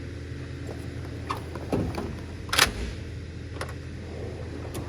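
Steel tool box drawers being shut and opened: a series of clicks and knocks, with a loud clunk about halfway through as a drawer closes. A steady low mechanical hum runs underneath.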